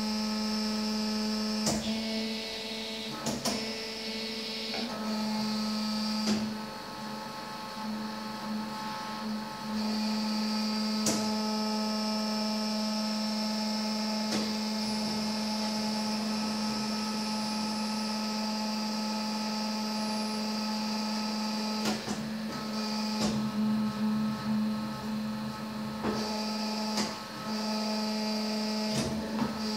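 A machine hums steadily at one pitch, with a few sharp clicks and brief changes in its sound scattered through.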